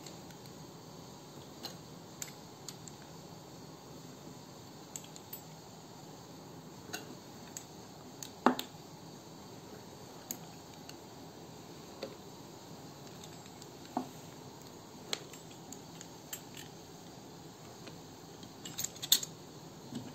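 A knife cutting through soft dough and tapping on a wooden cutting board: scattered light knocks at irregular intervals, the loudest about halfway through and a quick cluster near the end, over a faint steady hiss.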